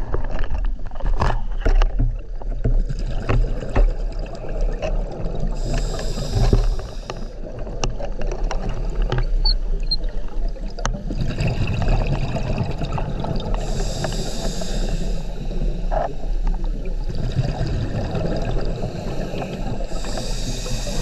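Scuba diver breathing through a regulator, heard through a GoPro's underwater housing: exhaled bubbles rush out three times over a steady muffled underwater rumble, with a few light clicks near the start.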